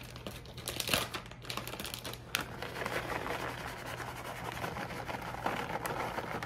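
Shredded cheddar cheese shaken out of a plastic bag onto pasta salad in a plastic bowl: a dense, steady patter of falling shreds with the bag rustling. A couple of sharp clicks come in the first few seconds.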